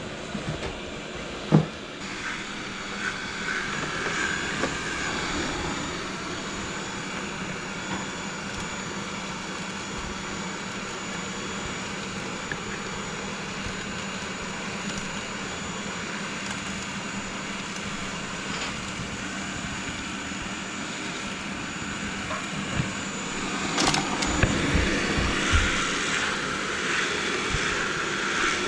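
Roborock robot vacuum running: a steady motor-and-fan whir with a faint high whine. It grows louder about four-fifths of the way through, with a few knocks.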